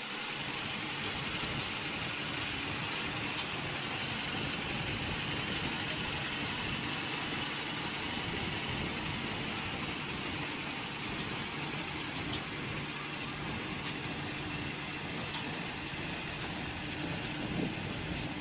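Baler at work, its engine and machinery running as one steady drone with a faint hum.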